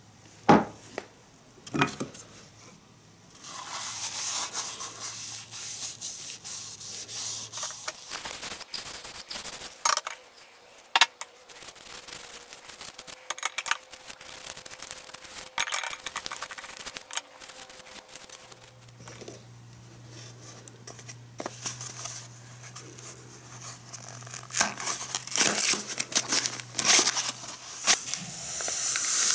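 Paper towel rubbing and scraping over hard plastic egg-mold parts as they are wiped with oil, with small clicks and knocks as the plastic pieces are handled. Near the end, a paper packet crinkles as powder is shaken out of it.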